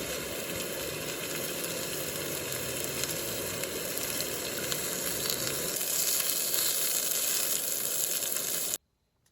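A steady sizzling, crackling noise that grows slightly louder, then cuts off abruptly near the end.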